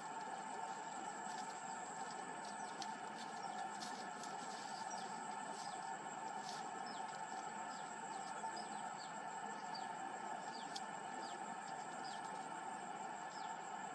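Steady outdoor insect drone with a thin high whine, and short, high, falling bird chirps repeating irregularly over it.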